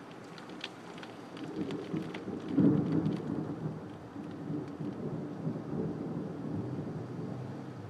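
Thunder rumbling, building about a second and a half in and loudest near the three-second mark, then rolling on low. Scattered taps of rain hit the window glass.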